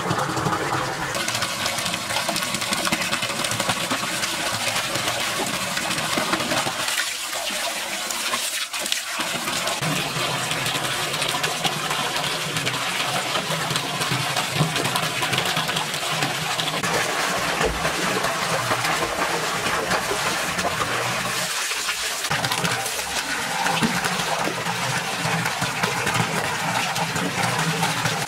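Water splashing in a small pool as swimmers move about in it, while a thin stream of water pours steadily into the pool from above.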